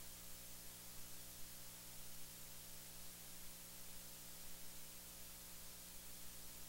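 Steady faint hiss with a low electrical hum underneath: an audio line's noise floor with no other sound.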